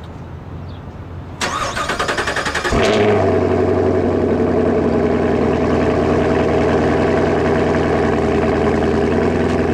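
2016 Chevrolet Camaro SS's 6.2-litre V8 being started: the starter cranks for about a second and a half, the engine catches about three seconds in, and it then idles steadily through its quad-tip exhaust.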